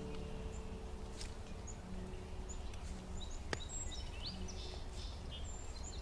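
Outdoor winter forest ambience: a steady low rumble with scattered short, high bird chirps and a single sharp click about three and a half seconds in.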